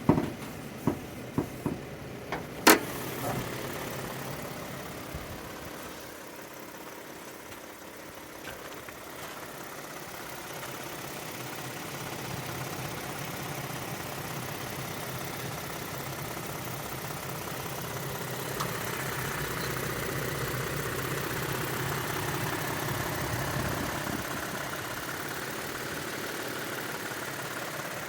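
A few sharp clicks and knocks in the first three seconds, then a 2022 Toyota Tundra's engine idling steadily, swelling slightly about two-thirds of the way through.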